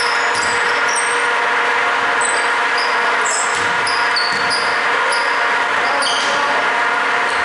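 Basketball game on a hardwood gym floor: sneakers squeaking in many short high chirps over a steady hiss, with a few thuds of the ball and players about six seconds in.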